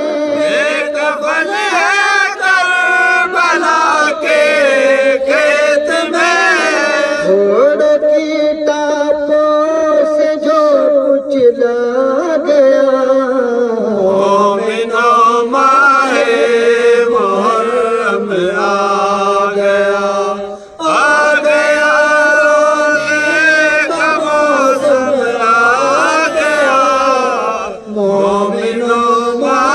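Male voices reciting a noha, a Muharram lament, in Urdu as a slow melodic chant with long held notes, with one brief pause about two-thirds of the way through.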